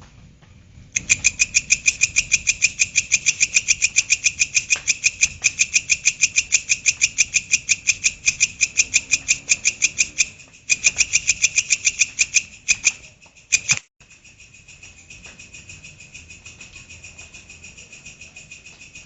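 Belalang kecek insect calling: a fast, even series of sharp, high-pitched rasping chirps, several a second. The calling breaks off briefly twice and, after a sudden cut, carries on more quietly.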